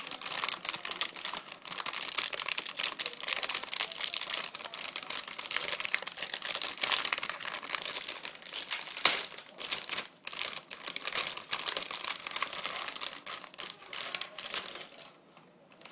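Packaging crinkling and rustling continuously as a graphics card is unwrapped, stopping near the end.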